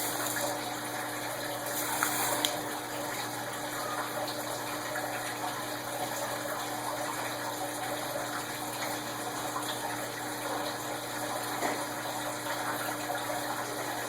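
Steady background hiss with a faint constant hum, and a few light clicks and rustles of packaging being handled, around two seconds in and again near the end.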